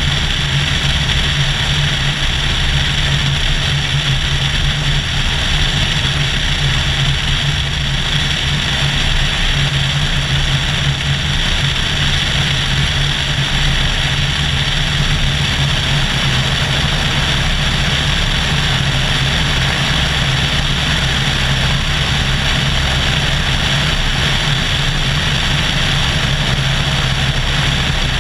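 Cessna 172SP's four-cylinder Lycoming engine and propeller droning steadily in cruise flight, heard from a camera mounted outside under the wing, with a constant rush of air.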